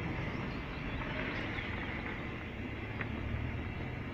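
A steady low mechanical hum with a hiss over it, and one short click about three seconds in.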